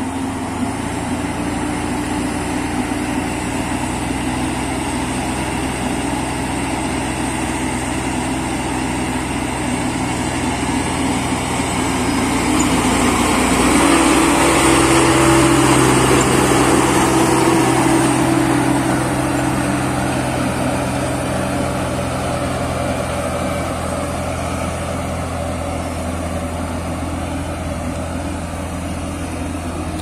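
Hamm HD 99 tandem road roller's diesel engine running steadily while it works, with a low drone. The sound grows louder in the middle of the stretch, where the machine is closest, then eases off again.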